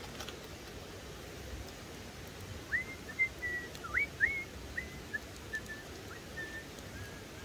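A bird calling: a run of about a dozen short, high whistled notes, the first few sliding upward, the rest shorter and trailing off fainter.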